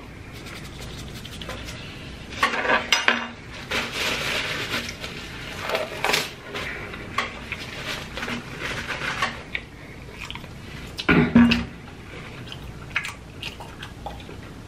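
Close handling noises: rustling, clicks and light clatter in short bursts as black nitrile gloves are pulled off and things on the food tray are handled.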